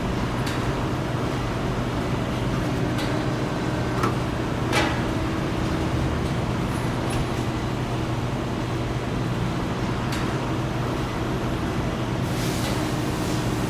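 Factory machinery running with a steady hum, with a few sharp metallic clicks and knocks coming through it now and then.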